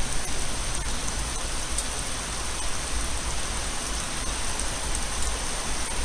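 Steady hiss of noise with a low rumble underneath and a few faint ticks, like rain falling on a surface, starting abruptly at the cut.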